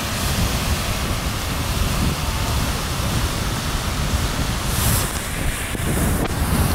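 Beehive Geyser in full eruption, a steady rushing roar of water and steam jetting from its cone, with wind buffeting the microphone.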